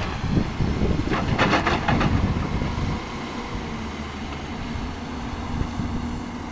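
Heavy diesel machinery running with a steady low rumble. A loud rattling, rushing burst comes about a second in and lasts about a second, and after that the engine settles to a quieter, even note.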